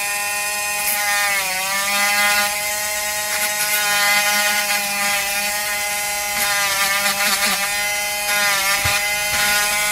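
Small handheld PCB drill running at steady speed with a motor whine, boring solder and crud out of a circuit board's component holes. Its pitch sags briefly a couple of times as the bit bites.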